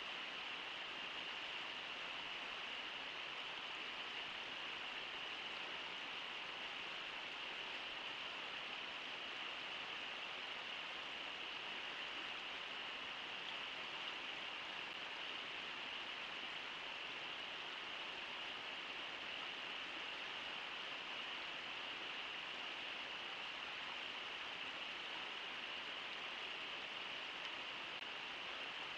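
Steady rush of river water, an even hiss with no distinct events.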